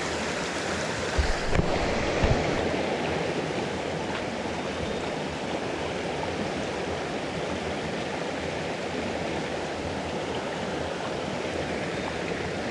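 Shallow, rocky mountain stream rushing steadily over stones in a riffle. Two short, low thumps come about a second and about two seconds in.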